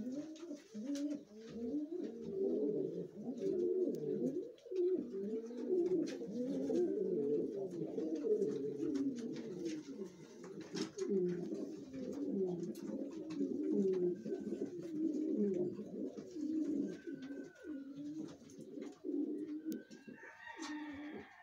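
Several domestic pigeons cooing at once, their low rising-and-falling coos overlapping without a break, with a few faint clicks among them.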